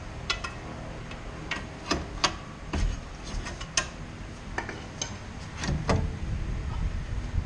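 Irregular sharp metallic clicks and clinks from hand tools working on a suspension bolt, spaced about half a second to a second apart, over a low steady rumble.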